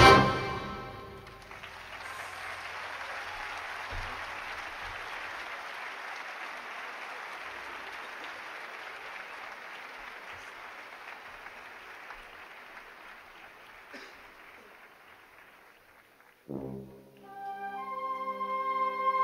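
Concert band's final brass chord cuts off at the very start, followed by an audience applauding steadily for about fourteen seconds, slowly dying away. Near the end the band starts again softly with held notes.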